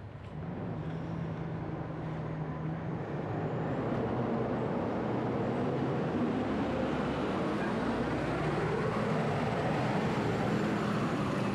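Steady motor-vehicle and road noise with a low engine hum, growing louder over the first few seconds and then holding steady.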